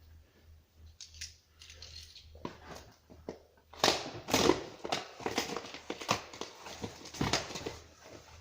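Packaging being handled: rustling and crinkling as an item is pulled out of a box, louder and busier from about halfway through, with irregular crackles and knocks.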